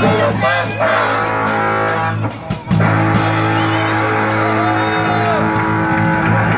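Live rock band playing, led by electric guitar. It drops out briefly about two and a half seconds in, then comes back on a long held, ringing chord.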